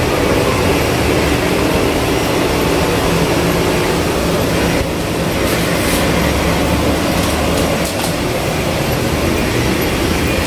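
Loud, steady machine noise from car-wash equipment: a low hum under a constant rushing hiss.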